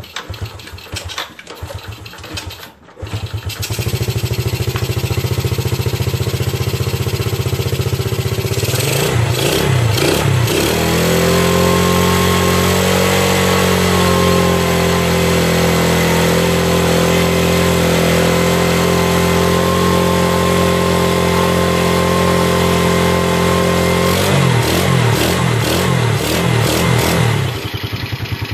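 Yamaha Vega ZR motorcycle's single-cylinder four-stroke engine being kicked over repeatedly and hard to start. It catches about three seconds in and runs, revs up and down around ten seconds in, then runs steadily at a raised speed, with its speed wavering again near the end.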